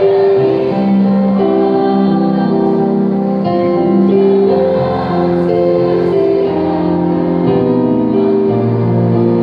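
Mixed choir singing a slow Christian song in long held notes, accompanied by an electronic keyboard.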